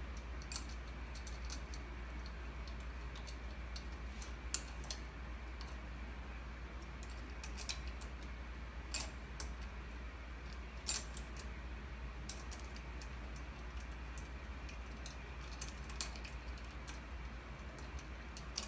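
Light metallic clicks and ticks of a 6 mm hex key being worked in the socket-head bolts of a Wiwa 6:1 pump's lower housing, coming at irregular gaps, over a steady low hum.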